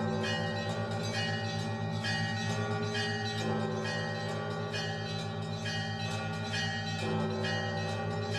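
Russian Orthodox church bells rung together for the vigil service: smaller bells struck in a fast repeating pattern over the steady hum of the large bells.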